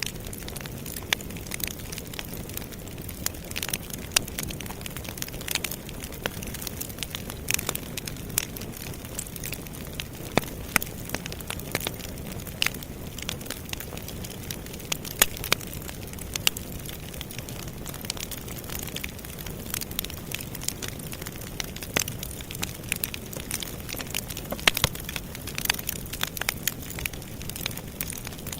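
Campfire burning with a steady low rush and frequent irregular crackles and sharp pops.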